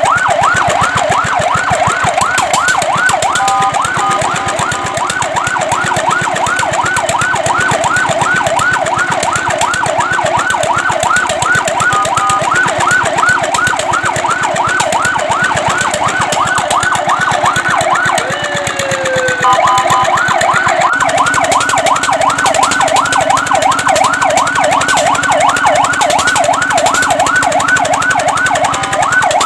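Fire truck siren sounding in a rapid electronic yelp, sweeping up and down about four times a second. Brief held tones overlap it a few times, and about two-thirds of the way through the yelp breaks into one falling tone before starting again.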